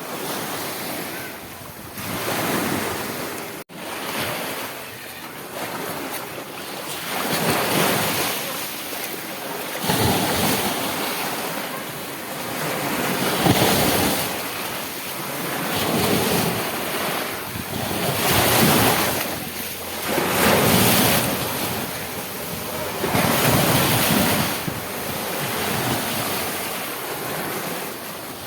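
Rushing water, a steady wash of noise that surges and falls back every two to three seconds, like waves, with a brief sudden dropout a few seconds in.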